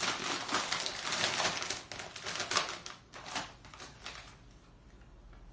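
Foil snack bag of Herr's cheese curls crinkling as it is opened and rummaged. The crackling is dense for about two seconds, turns to scattered crinkles, and dies away about three and a half seconds in.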